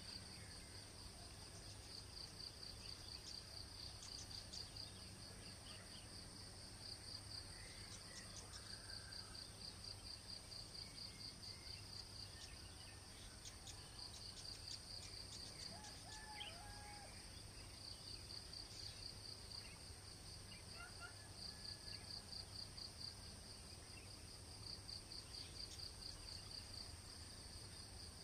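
Faint early-morning insect chorus: a steady, rapidly pulsing high trill with a thinner, higher steady tone above it. Scattered short bird chirps come in here and there.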